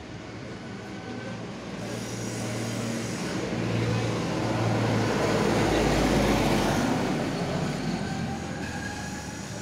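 A motor vehicle passing by, with engine hum and road noise that grow louder to a peak around the middle and then fade away.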